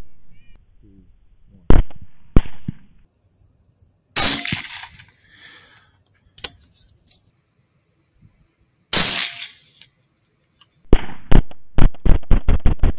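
Rifle shots fired at feral hogs: two shots about two seconds in, single loud shots near four and nine seconds, then a fast string of shots, about four a second, near the end.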